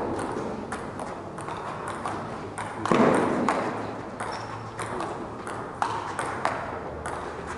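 Table tennis rally: the ball clicking sharply off the bats and the table, a hit every third to half second, with a brief louder burst of noise about three seconds in.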